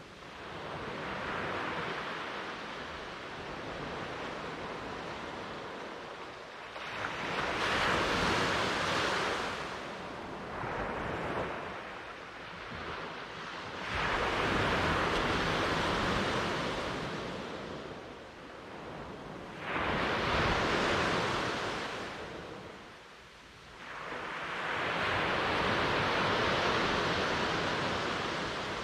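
Ocean waves breaking and washing up the shore, the surf noise swelling and fading in several long surges a few seconds apart.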